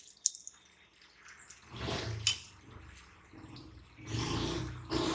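Blanching water in a steel saucepan bubbling around a potful of fresh spinach leaves as it comes back to the boil. The bubbling swells twice, about two seconds in and again about four seconds in.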